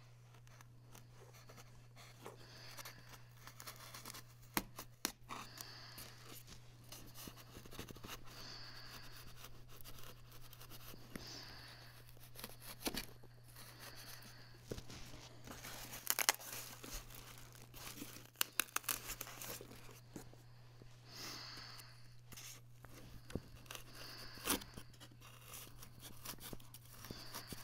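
Faint, intermittent tearing, scraping and clicking of packing tape being cut and pulled off the foam and cardboard packaging of a boxed TV, with a few sharp clicks and a steady low hum underneath.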